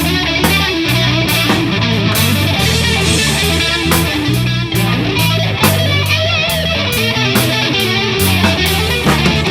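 Live rock jam by a guitar, bass and drums trio: an electric guitar lead with bent, wavering notes over a bass guitar line and a drum kit keeping a steady beat with cymbal strokes.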